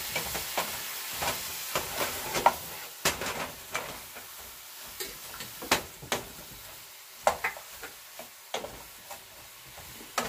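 Wooden spoon stirring and scraping bok choy and broccoli in a metal pan, with irregular clicks and taps against the pan. A hiss of the hot, steaming vegetables sizzling sounds under the first few seconds and then fades.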